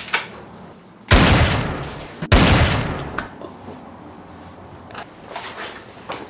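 Two gunshots about a second apart, each loud and dying away over about a second.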